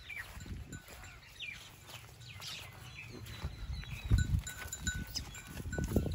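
A bull being led on a rope halter, moving and stepping about: low thumps and scuffs, loudest about four seconds in and again near the end, with thin high falling chirps scattered throughout.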